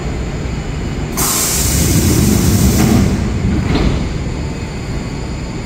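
Enshu Railway 2000-series electric train standing at the platform, letting out a sudden hiss of compressed air about a second in that lasts about two seconds, as it readies to depart after the doors-closing announcement. A single knock follows near the four-second mark, over a steady low rumble from the stopped train.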